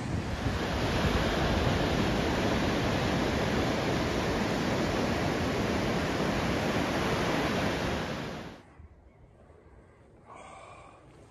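Waves breaking on a sandy beach, a loud steady wash of surf that cuts off suddenly about eight and a half seconds in. After that it is quiet, with a brief faint pitched sound near the end.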